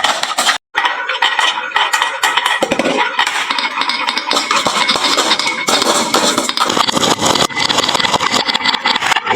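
Many marbles rolling and clattering down a wooden marble-run slope and into toy trucks, a dense continuous rattle of clicks. It cuts out briefly just under a second in.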